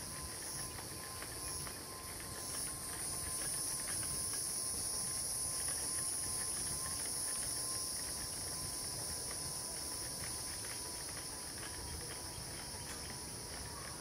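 Steady high-pitched insect chorus, with a low rumble underneath.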